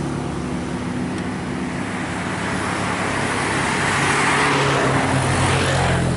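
Diesel engines of heavy trucks and a bus running steadily as they climb a long hill. A vehicle passes close by about four seconds in, its tyre noise swelling and fading, and a deeper engine drone grows near the end.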